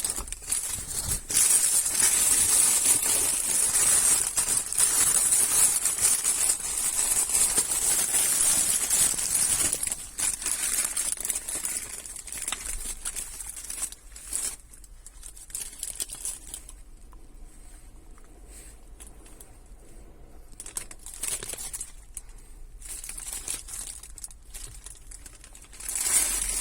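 Irregular rustling and crinkling handling noise with small clicks. It is louder for the first ten seconds or so, drops lower and sparser after about fourteen seconds, and picks up again near the end.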